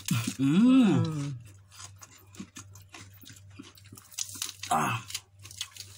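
A person's drawn-out wordless vocal sound, about a second long, rising then falling in pitch, followed by small crunches and clicks of chewing raw leafy vegetables, with a second short vocal sound near five seconds in.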